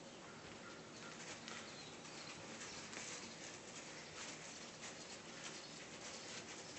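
Ragdoll kittens' paws and claws scrabbling over a satin bedspread during play: a faint, rapid, irregular patter of scratching and fabric rustling.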